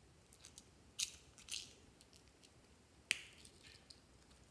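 Small plastic orange-slice cases handled and snapped open: a few sharp plastic clicks, the loudest about three seconds in.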